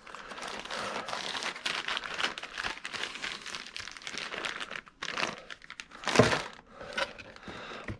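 Plastic bag crinkling and rustling as parts are rummaged through and handled, with a louder bump about six seconds in.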